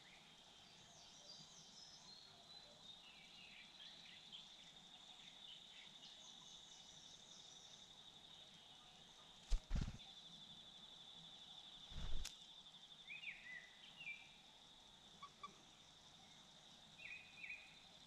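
Quiet outdoor ambience with a steady high-pitched insect-like trill throughout, short bird chirps scattered through it, and two sharp thumps about two and a half seconds apart near the middle.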